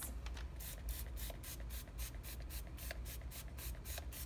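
Hand-pump spray-butter bottle spritzing onto slices of bread in quick repeated pumps, about five short hissing sprays a second, over a low steady hum.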